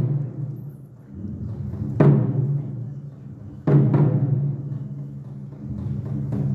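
Taiko drums: two hard strikes about a second and a half apart, each ringing on low and deep, then lighter strikes picking up again near the end.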